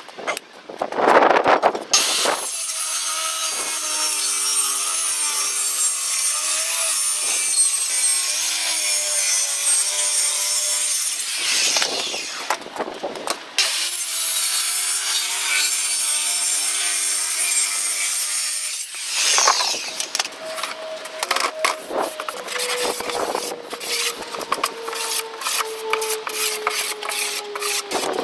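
Handheld circular saw cutting a sheet of plywood in two long passes, about nine seconds and then about five, with a short break between. Irregular knocks and clatter follow.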